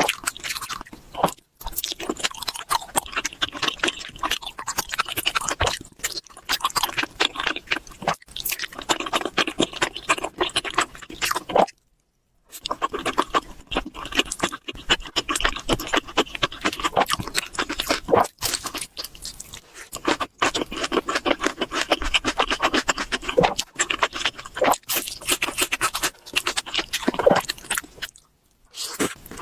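Close-miked chewing and crunching of chicken: dense, irregular crackling mouth sounds, broken by a few short silent pauses.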